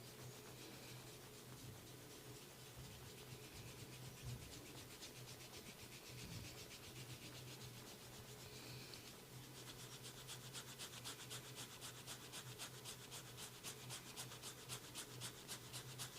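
Hands rubbing over skin and hair close to the microphone during a massage. The rubbing is soft at first, then turns into quick, even rubbing strokes, several a second, from about nine seconds in.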